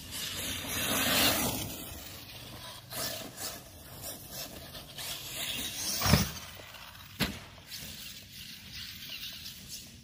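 Arrma Talion RC buggy running over rough ground: swells of motor and tyre noise, loudest about a second in. A heavy thump comes about six seconds in, followed by a sharp click about a second later.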